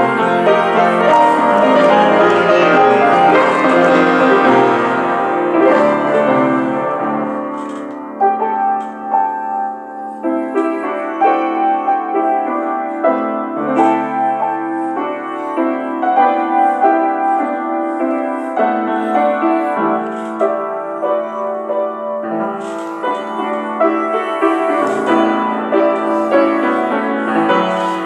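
Solo piano music written to imitate bells. Loud, dense chords ring together at first, then it thins to quieter, sparser notes over a low note that keeps sounding from about eight seconds in. It builds back to loud chords near the end.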